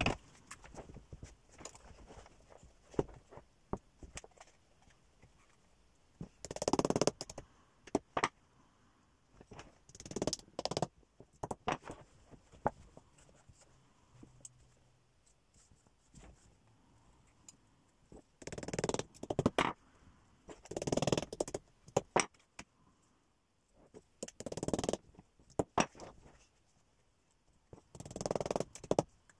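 Hands working a felt hat hood on a wooden hat block: short bursts of rustling and scraping from the felt and the cloth around it every few seconds, with scattered light clicks in between.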